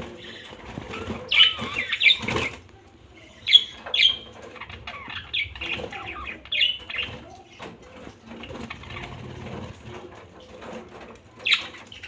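A flock of budgerigars chirping and chattering, with a few louder sharp calls standing out, and wingbeats as birds flutter about the aviary.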